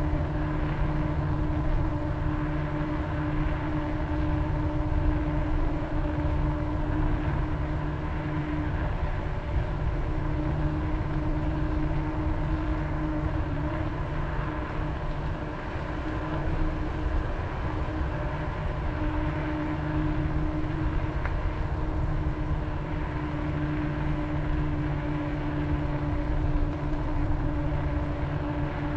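Bicycle ride heard from a camera on the bike: wind buffeting the microphone and tyres rolling on pavement, with a steady hum of several held tones underneath.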